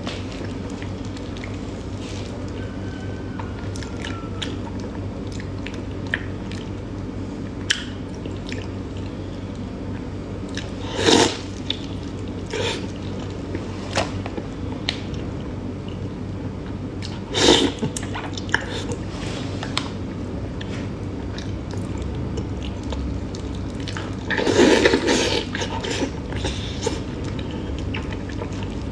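Close-up chewing and wet mouth smacks of someone eating soft braised meat in sauce, with scattered small clicks. Louder wet bursts come about 11 and 17 seconds in, and a longer one comes near the end. A steady low hum sits underneath.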